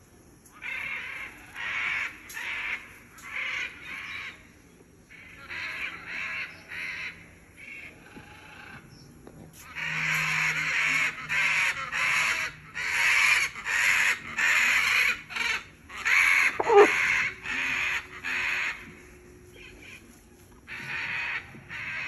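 Macaws squawking: harsh, raucous calls in quick runs of several squawks each, with short pauses between runs and one sharp louder note about three-quarters of the way through.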